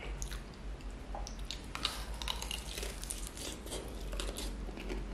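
Close-up eating sounds: crispy fried chicken batter being torn apart by hand and bitten, a run of small crackling crunches with chewing, over a steady low hum.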